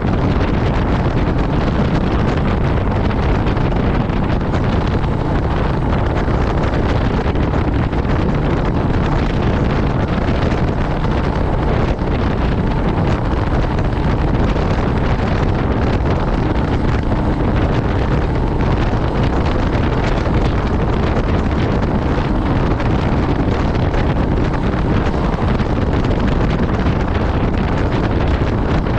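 Steady wind rush over the microphone while riding a Royal Enfield Meteor 350 motorcycle at road speed, with the bike's engine and tyre noise as a low drone underneath.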